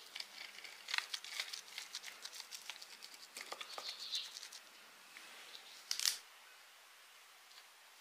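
Small stones clicking and knocking against each other while damp soil crunches as they are pressed by hand into gaps between rocks, with one louder crunch about six seconds in.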